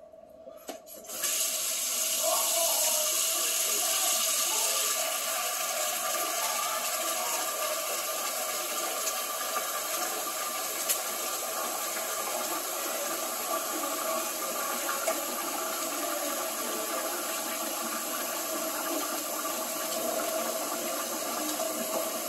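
Water running steadily, starting suddenly about a second in as an even rushing hiss.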